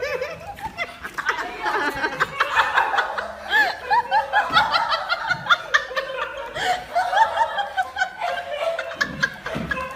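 People laughing continuously, several laughs overlapping.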